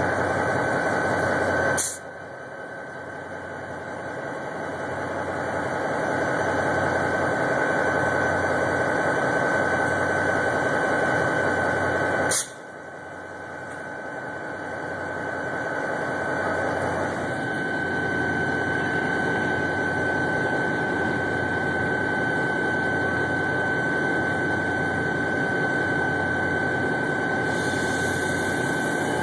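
Diesel engine of a CSX GP40-2 locomotive, an EMD 16-cylinder turbocharged 645, idling steadily with a constant high whine over it. Two sharp clicks, about two and twelve seconds in, each make the sound drop away suddenly and then build back up.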